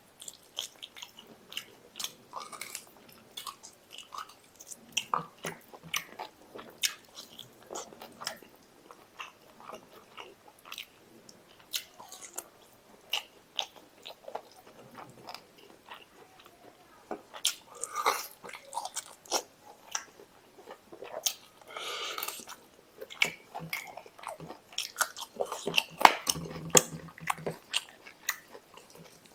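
Close-miked chewing and biting of a person eating mutton curry and rice with their hands: wet smacking and mouth clicks come in quick, irregular succession, with a few longer slurping stretches.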